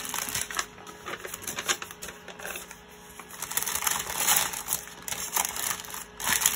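Small plastic bags of round diamond-painting drills and a paper chart being handled and packed away: crinkling plastic with light clicking and rattling of the drills, coming in bursts with a quieter stretch in the middle.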